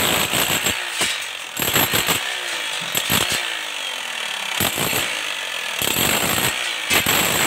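Electric demolition hammer chiselling into a reinforced concrete (RCC) slab, running with continuous rapid hammering as the bit breaks up the concrete.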